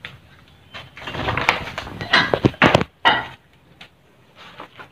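A door being pushed open: a rough scraping of about two seconds with several sharp knocks in it, then one more knock, followed by a few faint clicks.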